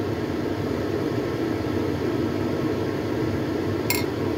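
Steady low mechanical hum, with a short clink about four seconds in.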